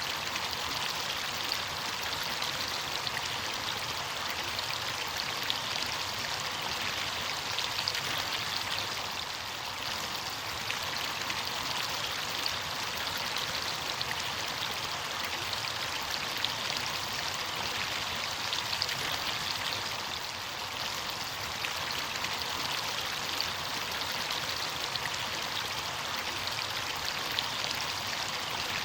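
Running water of a stream or small cascade, a steady rushing and splashing with no change in level.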